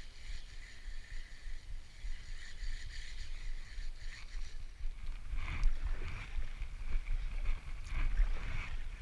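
Spinning reel being cranked, a steady whir from its gears, over wind rumbling on the microphone. About five seconds in the reeling stops, and kayak paddle strokes splash in the water.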